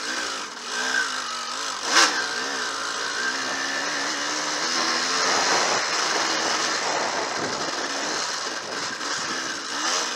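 Enduro dirt bike engine running under load, its pitch rising and falling with the throttle as it is ridden over rough trail. There is a sharp knock about two seconds in.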